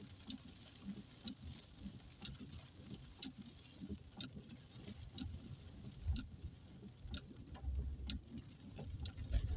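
Rain drops pattering irregularly on a car's roof and windscreen, heard from inside the cabin over the low rumble of the car driving on a wet road.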